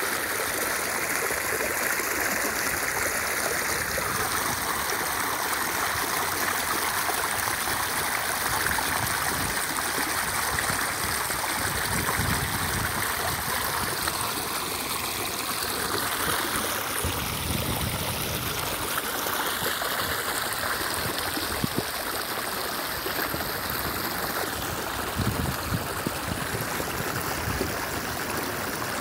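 Creek water rushing and splashing over rocks in a small cascade, a steady, unbroken rush of water.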